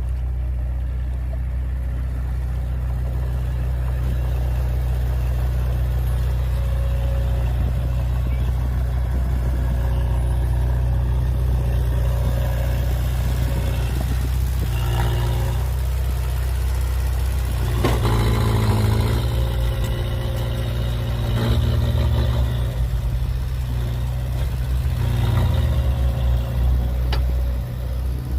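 Heavy diesel engine of earthmoving machinery running steadily under load, surging louder several times from about halfway through.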